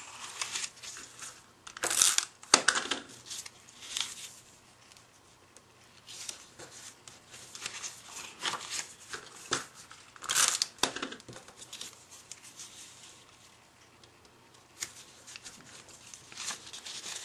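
Cardstock being folded, glued and pressed down as squares are stuck up a scored strip: irregular rustling and crinkling of paper, with louder brief scrapes about two seconds in and again about ten seconds in.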